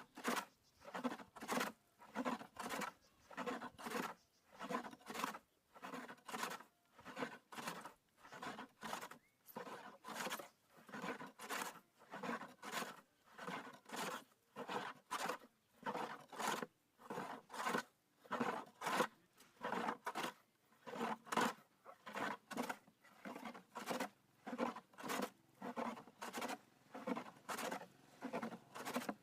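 A hand tool scraping over wood in steady, even strokes, about two a second, as a wooden part is worked by hand.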